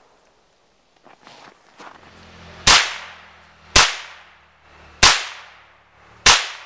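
GSG 522 .22 rimfire semi-automatic rifle fired four single shots, a little over a second apart, each a sharp crack trailing off in a short echo.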